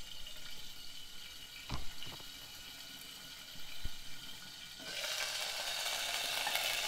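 Moringa drumstick pieces frying in hot oil with mustard seeds and cumin in a steel pot: a faint sizzle under the glass lid with a few soft knocks, then a loud, steady sizzle from about five seconds in with the pot open.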